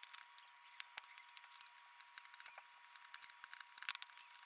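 Faint, scattered small clicks and scrapes of a screwdriver working screws out of a laptop's plastic screen housing, with a sharper click about a second in and a little cluster near the end, over a faint steady whine.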